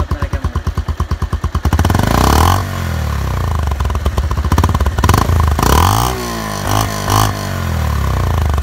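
Bajaj Pulsar 150 UG5's single-cylinder engine heard at the exhaust, which is fitted with an aftermarket R15-style silencer end cap. It idles with a fast, even pulse, is revved up and let fall back several times from about two seconds in, then settles back to idle near the end.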